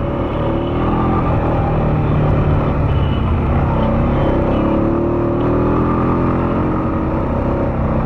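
ATV engine running as the quad rides along a trail, its pitch rising and falling gently with the throttle.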